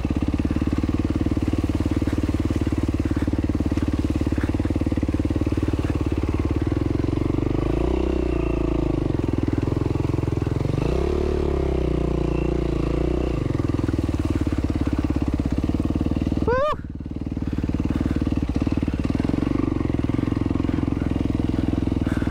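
Yamaha WR450F's single-cylinder four-stroke engine running at low revs as the dirt bike is ridden through a flooded, muddy trail. The revs rise briefly twice, about eight and eleven seconds in. Near seventeen seconds in the sound dips suddenly, with a quick rising sweep.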